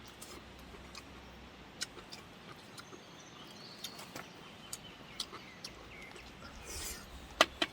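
Quiet outdoor ambience with faint bird chirps and scattered small sharp clicks and ticks, one louder click near the end.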